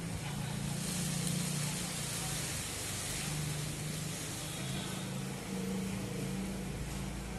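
Traffic noise: a steady hiss with the low hum of a vehicle engine running nearby, its pitch shifting a few times.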